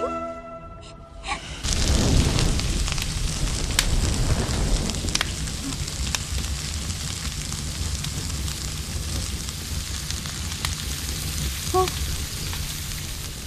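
A music cue with flute ends in the first second. Then a cooking fire on a kitchen stove burns steadily, a rushing noise with scattered crackles.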